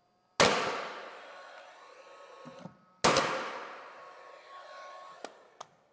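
Cordless brad nailer firing twice, about three seconds apart, driving brads through a glued panel into a wooden kitchen cabinet frame. Each shot is a sharp crack followed by a long ringing decay. Two small clicks follow near the end.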